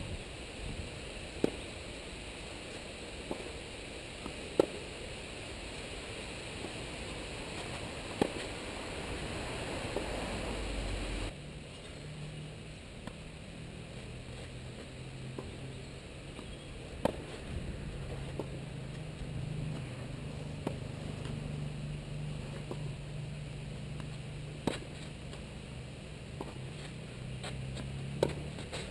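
Tennis ball struck by rackets in a rally: single sharp pops a few seconds apart over a steady hiss of outdoor background noise.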